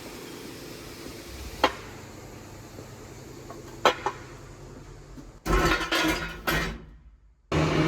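A few sharp metallic clinks, like small metal parts or tools being knocked or set down, over quiet workshop room tone, followed near the end by a louder burst of noise about a second and a half long that stops abruptly.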